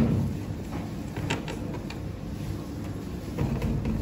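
Long knife slicing through a tray pizza, its blade scraping and clicking against the metal baking pan several times, over a steady low background noise.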